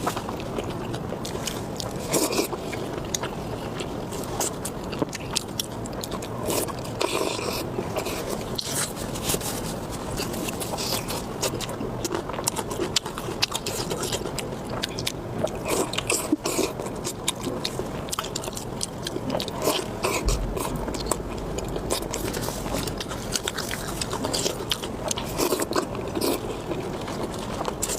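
Close-miked eating: chewing and biting with a steady run of sharp, crunchy, wet clicks.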